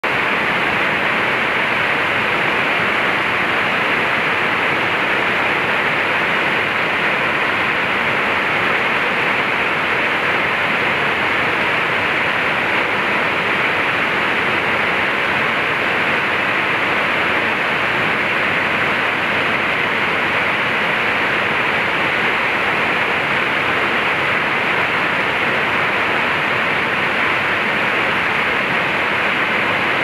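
Waterfall in full flow, water pouring over a rock ledge into a pool: a steady, unbroken rush that never changes.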